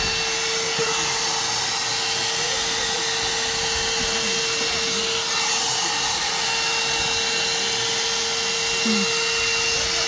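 One-step hot-air brush hair dryer running on its high setting while it is drawn through hair: a steady rush of air with a constant motor whine.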